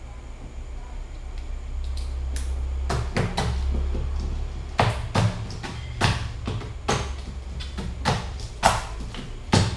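Ice pick stabbing and breaking a block of ice in a stainless steel sink: sharp cracking strikes, a few at first, then about two a second. A steady low hum runs underneath.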